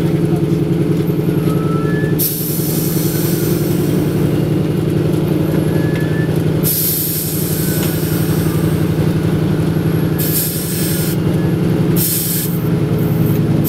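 Antonov An-2's nine-cylinder radial engine running steadily at low power as the biplane taxis on grass, heard from inside the cabin. Bursts of hiss come and go over the engine sound several times.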